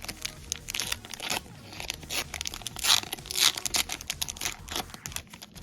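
Trading-card booster flow pack being torn open and its wrapper crinkled: irregular rips and crackles, loudest about three seconds in.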